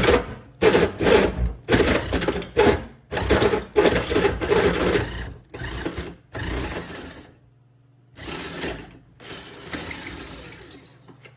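Hole saw on a power drill run in short stop-start bursts against the sheet-metal strut tower of a car, chattering and catching without biting in. It goes quiet briefly a little past the middle, then starts up again more weakly.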